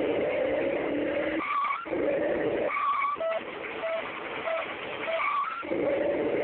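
Car racing sounds: an engine revving up, then a short tyre squeal, repeated about three times, with faint regular beeps underneath.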